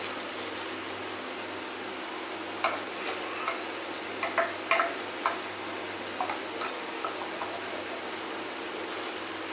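Mutton gravy sizzling steadily in a metal pan on a low flame. From about two and a half seconds in come a run of short clacks and scrapes as the ground coconut-fennel paste is scraped out of the mixer jar into the pan.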